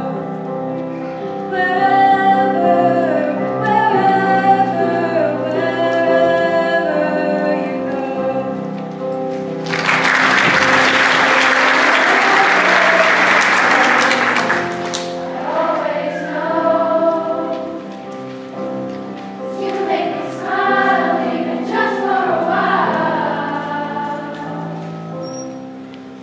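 Girls' choir singing with piano accompaniment. About ten seconds in, a loud burst of applause lasts about five seconds, then the choir sings on and grows quieter near the end.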